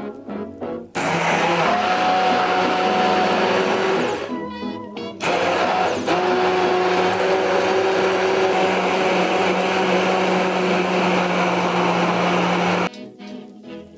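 Immersion (stick) blender running in a plastic beaker, puréeing stewed vegetables, chickpeas and broth into a cream soup: one run of about three seconds, a brief stop, then a longer steady run of about seven seconds that cuts off near the end.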